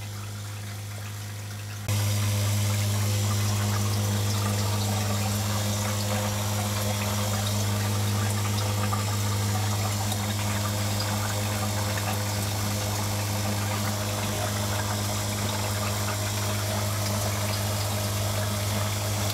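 Recirculating deep-water-culture hydroponic system running: the water pump gives a steady low electric hum over a continuous hiss of water moving through the buckets. About two seconds in, the sound gets suddenly louder, then stays steady.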